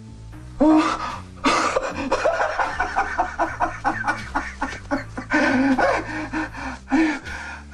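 A man's breathless, ecstatic shouting and laughing, a rapid string of gasping cries and pants that starts loud about half a second in, with a low sustained music score under it.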